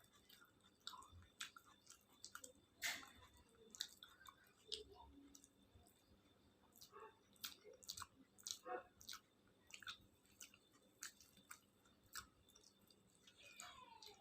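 A person chewing a mouthful of khichuri and fried sides close to the microphone: faint, irregular wet mouth clicks and smacks. A brief falling squeak comes near the end.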